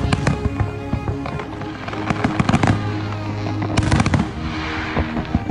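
Aerial fireworks going off: a run of crackling pops and bangs, with a louder bang about four seconds in, over music playing.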